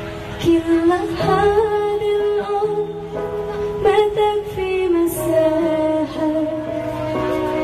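Background music: a song with a singing voice holding long notes that slide between pitches over instrumental accompaniment.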